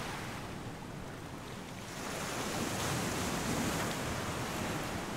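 Ocean surf washing around the pier pilings, a steady rush of water that swells louder about two seconds in.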